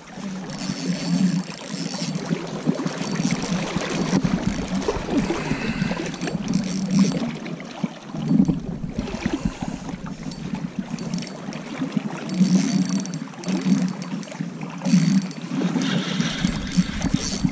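Flowing river water with rustling and handling noise from hands on the fishing rod and reel.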